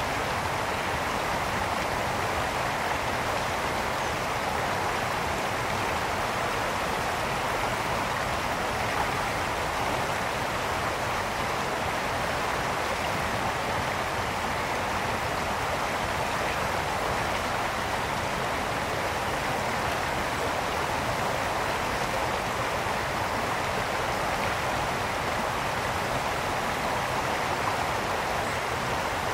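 A brook flowing steadily over stones: an even, unbroken rush of running water.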